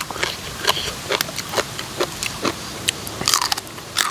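Close-up chewing of a mouthful of spicy papaya salad with pickled salmon and shrimp: irregular wet smacks and crunches, several a second.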